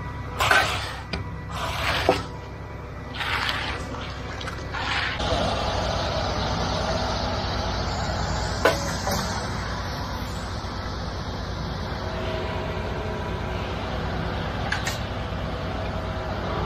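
Diesel engine of a concrete truck running steadily. About five scraping strokes of a hand edger along the slab edge come in the first five seconds, then the engine grows louder and steady, with a sharp tick near the middle.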